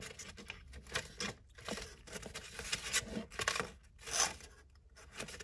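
Small plastic Littlest Pet Shop figures and accessories being picked up and set down on a wooden tabletop: irregular light clicks and taps, with some rustling of a paper package.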